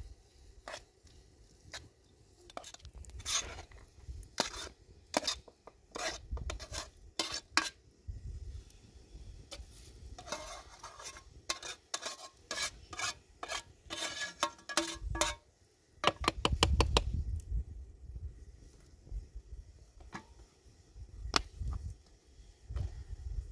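Metal utensils clinking and scraping against a cooking pot or dishes in irregular sharp strikes, some ringing briefly, with a quick run of rapid clinks about two-thirds through.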